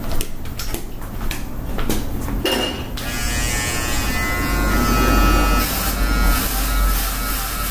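A few handling clicks, then an electric shaver switches on about three seconds in and runs with a steady buzz. A little later it is put to a freshly buzzed scalp, taking the stubble down to the skin.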